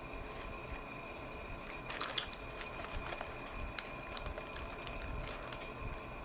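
Close-up chewing and mouth sounds of someone eating a lettuce-wrapped sandwich: scattered small wet clicks and crunches, with a brief burst of crisper crunching about two seconds in.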